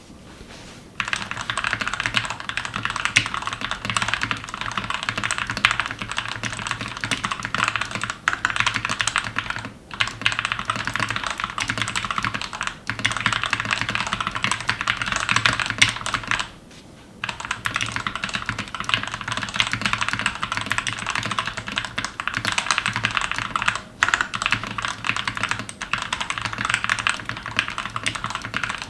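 Fast, continuous typing on a Glorious GMMK TKL mechanical keyboard, built with Gateron Ink Red and Gateron Yellow linear switches and stock stabilizers, giving a deep, thocky keystroke sound. The typing starts about a second in and pauses briefly a few times, the longest pause being just under a second past the midpoint.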